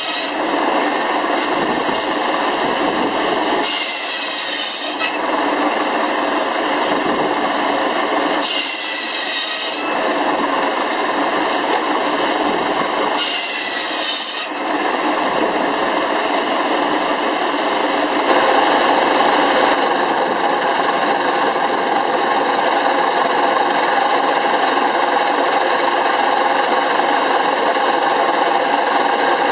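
Steam-driven circular saw cutting wood: three high whines about a second and a half long, roughly every four and a half seconds, over the steady clatter of the running machinery. From about two-thirds of the way in the whines stop, and a louder, steady mechanical run of the small steam-shovel swing engine and its belt drive fills the rest.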